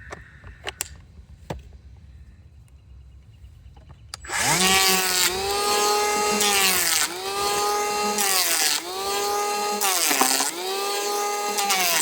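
Power saw cutting wood: the motor starts about four seconds in, comes up to speed with a steady whine, and drops in pitch four times as the blade bites into the wood.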